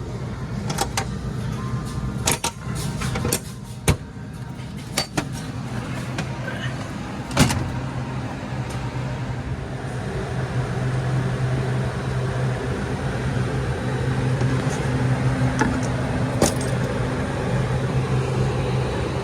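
A string of sharp clicks and knocks, then a steady low mechanical hum of Carrier rooftop air-conditioning units running, which grows louder over the last half.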